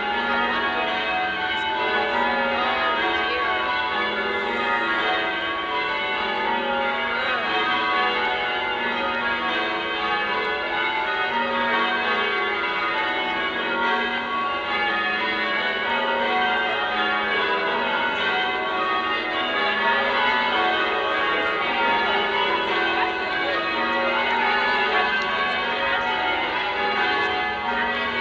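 A ring of eight English change-ringing church bells pealing steadily from the cathedral tower, the bells struck one after another in changing order with no break.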